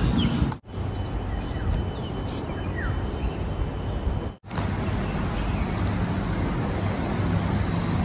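Outdoor ambience: a steady rushing background noise with a low rumble, and a few short bird chirps. The sound drops out abruptly twice.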